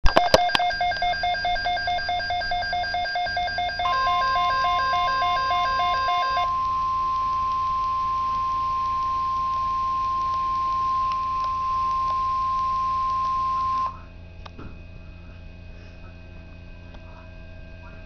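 Midland NOAA weather radio receiver alerting: a pulsing electronic alarm beep, joined about four seconds in by the steady 1050 Hz NOAA Weather Radio warning tone. The warning tone holds for about ten seconds and cuts off suddenly, leaving low radio hum and hiss. It heralds a tornado watch broadcast.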